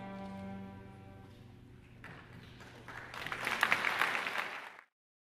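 A middle-school string orchestra's final held chord rings out and fades. About two seconds in, audience clapping starts and builds to a peak, then the sound cuts off abruptly near the end.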